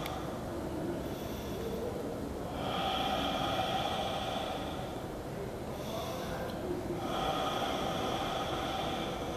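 Slow, heavy breathing close to the microphone, with two long breaths a few seconds apart.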